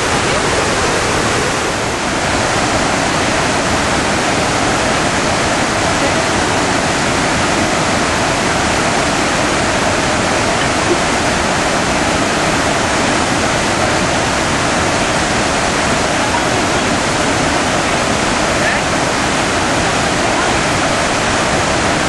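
Large waterfall plunging into pools, a steady, full rush of falling water with no breaks.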